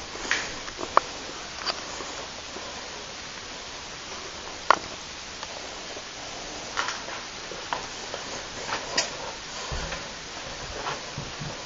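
Scattered clicks and knocks over a steady hiss, with a few low thuds near the end: handling noise from a handheld camera being carried while walking.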